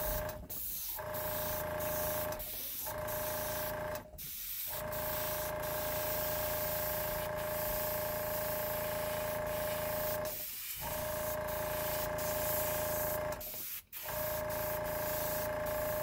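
Airbrush hissing as it sprays paint onto a T-shirt, over the steady hum of a small air compressor. The sound drops out briefly several times.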